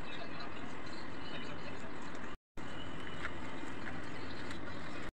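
Steady background hiss, cut off briefly twice: about two and a half seconds in and again near the end.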